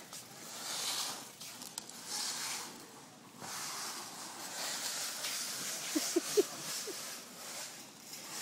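Cardboard box pushed across a smooth concrete floor, a hissing scrape that swells and fades with each push. A few brief squeaks about six seconds in.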